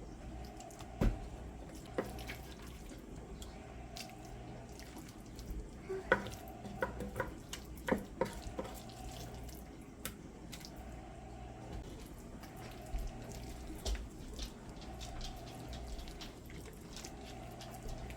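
Kitchen clatter: scattered light clicks and knocks of utensils and dishes, a quick cluster of them about six to nine seconds in, over a steady low hum.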